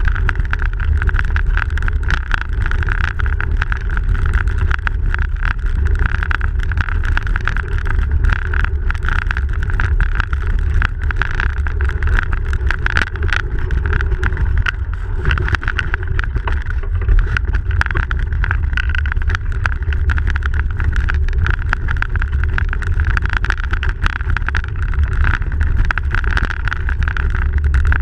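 A bicycle riding over packed snow, heard from a camera mounted on the bike: a steady low rumble of tyre and wind noise with many small clicks and rattles.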